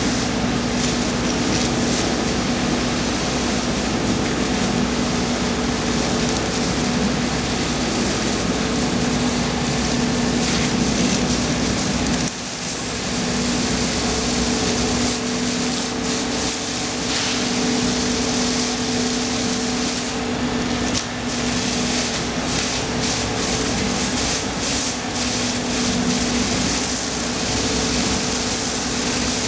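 Pressure washer running: the steady hum of its pump motor under the hiss and splash of the water jet striking wet concrete. The sound dips briefly about twelve seconds in.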